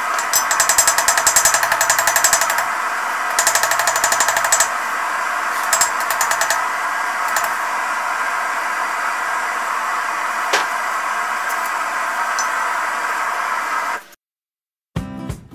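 Hand hammer striking a red-hot steel knife blank on an anvil in quick runs of ringing blows as the blade is forged out, over a steady rushing noise. The hammering thins out to a few short runs after about five seconds. All sound cuts off abruptly near the end.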